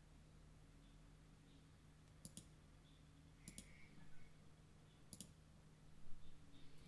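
Computer mouse clicking in near silence: three quick double clicks, the first about two seconds in and the others each a second or so later, over a faint steady hum.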